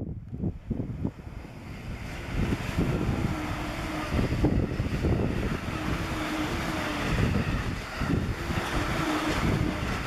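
Strong wind gusting on the microphone over the rumble of a Joban Line train running past, with faint whining tones through the middle.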